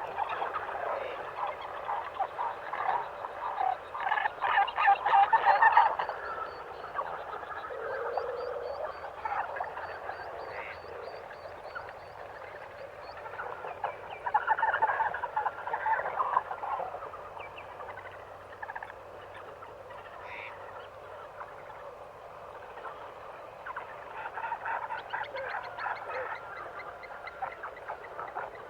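Animal ambience of rattling, croaking calls in three louder bouts, over a steady background of chirps, with a thin high trill running for several seconds near the start.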